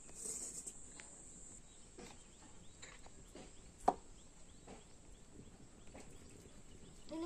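Faint quiet scene with scattered small clicks and taps, the sharpest about four seconds in, over a steady faint high hiss.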